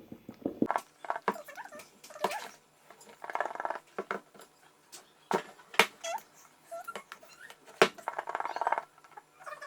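Box and packaging being handled as the lid is pulled off: scattered sharp taps and clicks, and two stretches of sliding rustle. A couple of short, high squeaks come near the middle.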